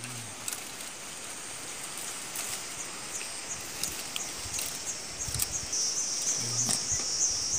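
Insects trilling in the forest undergrowth: a rapid, evenly pulsing high-pitched chirr that grows louder about five seconds in. A few light clicks of dry twigs being handled come through under it.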